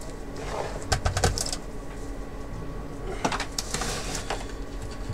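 Handling noises: short knocks and scrapes as a disassembled LCD monitor's metal chassis is moved about on a workbench, in two bursts about one second in and around three to four seconds in, over a steady hum.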